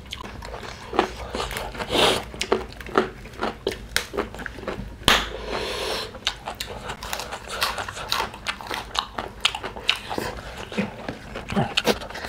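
Close-miked eating sounds: two people chewing and smacking their lips while fingers mix rice and mutton curry on steel plates, a steady run of short wet clicks. One longer, louder noise comes about five seconds in.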